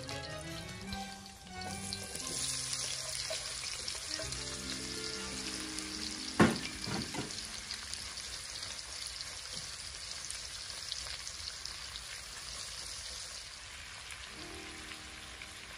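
Sliced onions hitting hot oil in a large metal cauldron start sizzling about two seconds in, the sizzle easing off over the last few seconds. One sharp knock about six seconds in is the loudest sound, with soft background music underneath.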